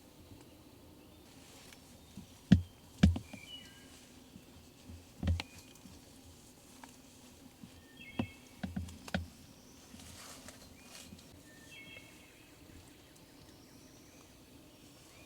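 Quiet woods ambience with small birds chirping in short high phrases several times, broken by sharp knocks or taps: two loud ones about two and a half and three seconds in, another about five seconds in, and a quick cluster around eight to nine seconds.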